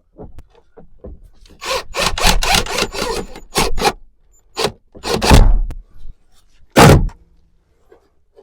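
Mahogany boards being scraped and rubbed by hand: a quick run of rough strokes, then a few separate scrapes, the last one loud and short.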